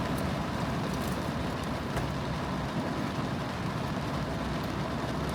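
Steady low rumble inside a car's cabin, with a faint tick or two.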